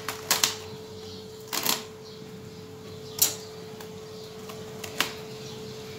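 Plastic cling film crackling in a few short bursts as fingers press it down over the rim of a glass bowl, the sharpest about three seconds in.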